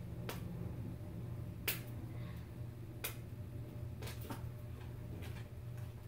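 Scattered sharp clicks of a plastic LOL Surprise ball being handled, about six at irregular intervals, the loudest a little under two seconds in, over a steady low hum.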